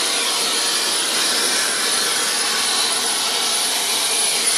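Helicopter's turbine engine and rotor running steadily after landing, a loud even rush with a thin high whine on top, heard through the open cabin door.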